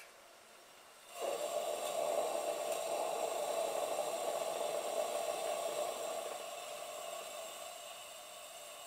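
Coleman NorthStar gasoline lantern lighting: the pressurised burner catches suddenly about a second in and then hisses steadily as the mantle comes up to full brightness. The hiss grows quieter over the last few seconds.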